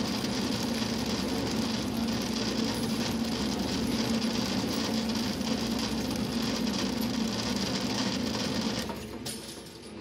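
Super Stripper 170 cable stripping machine running, with a steady hum and a constant clatter of stripped cable pieces and metal curls hitting the steel plate and bin. The sound drops off about nine seconds in.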